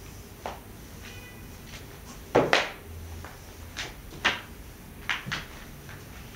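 Irregular sharp knocks and clatters, about seven in all, the loudest pair a little over two seconds in: things being knocked about during a cat's play.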